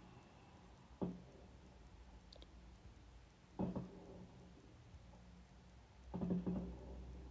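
Soft clicks and knocks from small things being handled on a tabletop: three separate knocks a couple of seconds apart, the last a quick cluster of taps.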